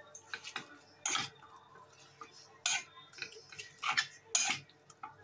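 Metal fork clinking and scraping against a stainless steel saucepan while glass noodle salad is tossed in it, in irregular strokes with a few louder clinks.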